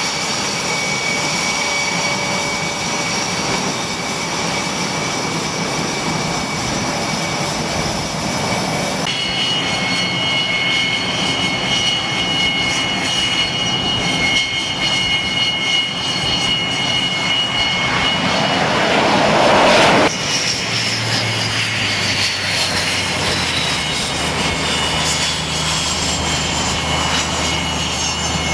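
F/A-18 Hornet-family jet engines running on a carrier flight deck: a steady high whine over a low rumble. Shortly after the middle, a louder swell builds to a peak and cuts off suddenly; near the end, whines slowly fall in pitch over a low hum.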